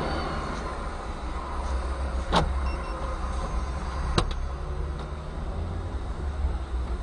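Steady low rumble of idling road traffic heard from a stopped car, with two sharp clicks, about two seconds in and again nearly two seconds later.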